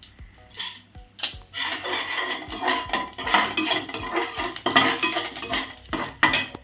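Metal kitchen utensils and pots clattering and clinking, a few separate clinks at first, then busy continuous clatter from about a second and a half in.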